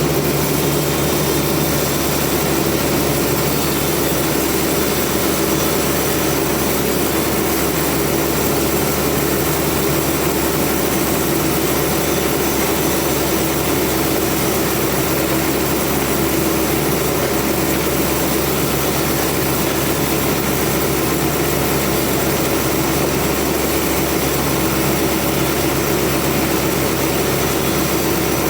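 Sawmill machinery running at a steady pitch, a constant loud drone that neither rises nor falls.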